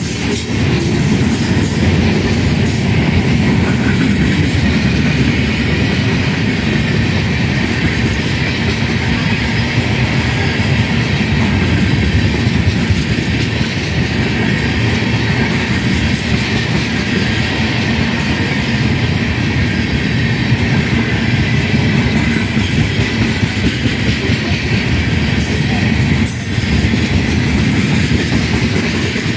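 Freight train's tank cars rolling past close by: the steady noise of steel wheels running on the rails, with a brief dip near the end.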